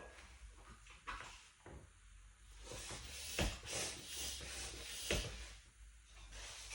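Bicycle hand pump being fitted to the inner tube's valve and worked: scattered clicks and knocks with a couple of brief faint hisses of air.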